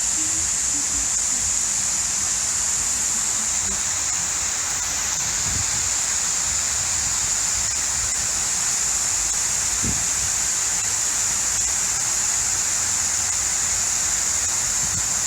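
Fountain water falling and splashing into its basin: a loud, steady rushing hiss.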